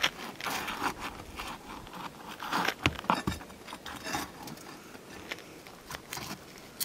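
A flat bar prying asphalt roof shingles loose from their tar sealing strip: irregular scraping and crackling with small clicks as the shingle peels away.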